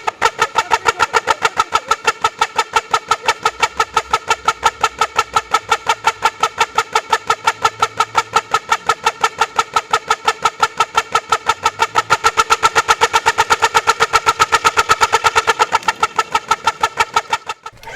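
Royal Enfield Bullet's single-cylinder exhaust blown through a bunch of toy trumpet horns tied to the silencer, so each exhaust beat comes out as a short toot: a rapid, even train of loud toots, several a second, holding steady.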